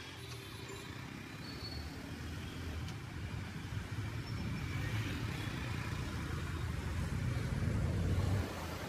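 Road vehicle and traffic noise: a steady low rumble that grows gradually louder, then drops suddenly near the end.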